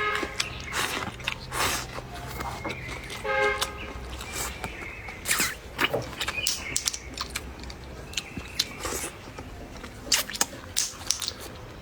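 Close-up eating sounds: crunching and chewing with frequent sharp clicks. A short horn-like toot sounds near the start and again about three and a half seconds in.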